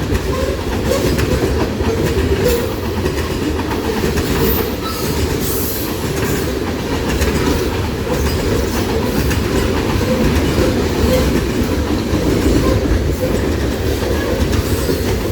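Fully loaded coal hopper cars of a heavy freight train rolling past: a steady, loud rumble of steel wheels on the rails, with clicking over the rail joints.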